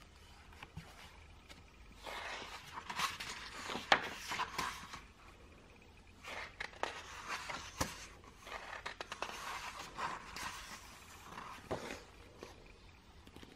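Paper pages of a hardcover book being turned and flipped by hand, rustling in two stretches with a few sharp ticks.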